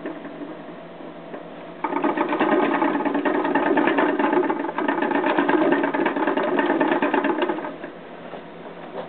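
A pet rat's exercise wheel spinning fast with a rapid rattling whir as the rat runs in it. It starts up loud about two seconds in, runs for about six seconds, then falls away near the end.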